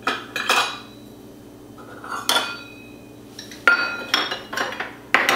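A nested set of measuring cups clattering and clinking as they are handled and set down on a countertop: about half a dozen separate knocks, some with a brief ring.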